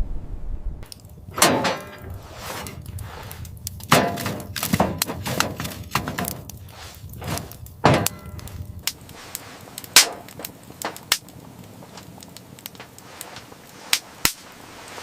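A series of hard knocks and cracks at uneven intervals, each ringing briefly. They come thick and heavy in the first half, with the loudest about a second and a half in, at about four and eight seconds, and again at about ten. In the second half they thin out to a few sharp clicks.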